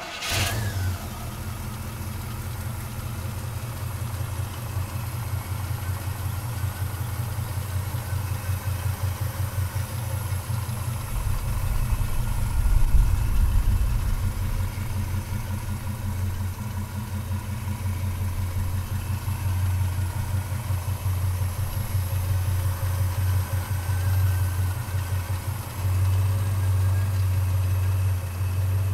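The 509-cubic-inch Chevrolet big-block V8 of a 1967 Chevrolet C10 pickup running at a steady idle with a deep, pulsing rumble, swelling louder for a couple of seconds about twelve seconds in.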